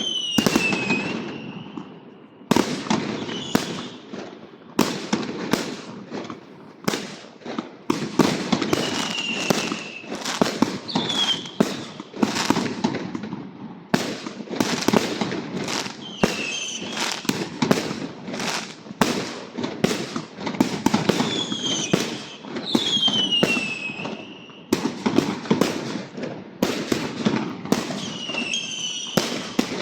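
Firecrackers and fireworks going off nonstop in dense volleys of sharp bangs and crackles. Short falling whistling tones cut through the bangs several times.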